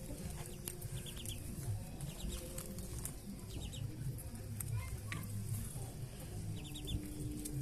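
Mother hens clucking low, with their chicks' short high peeps coming in quick little runs three times.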